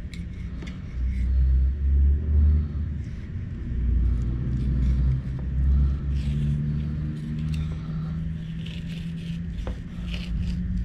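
Fillet knife scraping and sliding along a countertop as it skins gafftopsail catfish fillets, in faint short strokes. Under it, an uneven low rumble and a steady hum, the loudest sounds.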